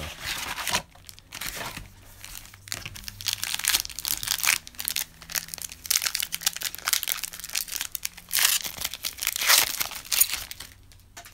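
Plastic and foil packaging of a trading-card blaster box and its card packs being torn open and crinkled by hand, in irregular rustling bursts that ease off near the end.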